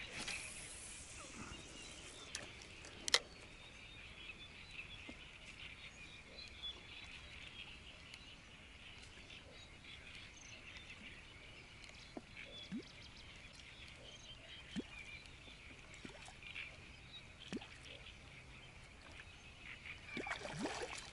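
Faint calm-water ambience: a steady, high chorus of distant animals from the reed beds, with scattered soft ticks. There is one sharp click about three seconds in.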